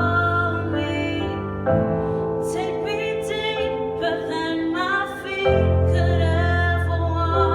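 A woman singing a slow song with piano or keyboard accompaniment.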